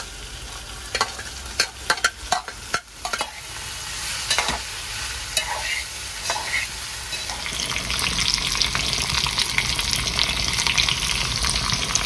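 A steel spoon stirring chopped okra and sliced onions in a steel pan, clicking and scraping against the metal in the first few seconds. A frying sizzle builds about halfway through and stays loud.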